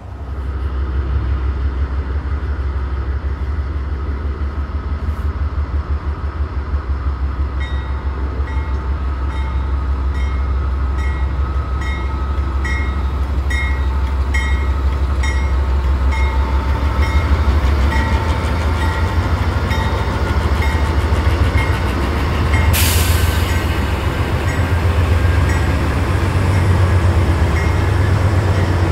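Canadian National GE Dash 9-44CW diesel locomotives hauling a freight train past at close range, their engines giving a heavy, steady rumble. From about 8 s to about 22 s an evenly repeated ringing tone sounds about one and a half times a second, and a sudden loud hiss breaks in about 23 s in.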